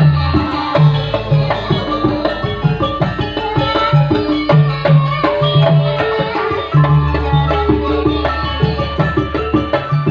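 Campursari band playing an instrumental piece: hand drums keep a busy, lively rhythm over steady bass notes and a melody line.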